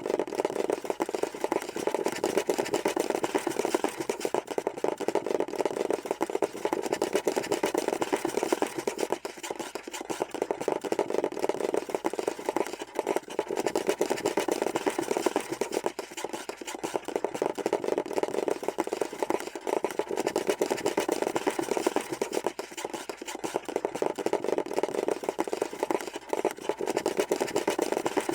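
Scurrying sound effect: a dense, rapid patter of small scratching taps that runs on steadily, the sound of small feet or claws scrambling.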